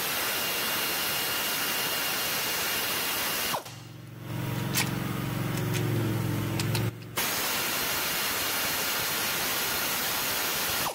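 Pneumatic air ratchet with a 15 mm socket running, backing out a starter mounting bolt. It makes a steady hissing whir in long runs, cut off briefly about three and a half seconds in and again around seven seconds in; the middle run is lower in pitch.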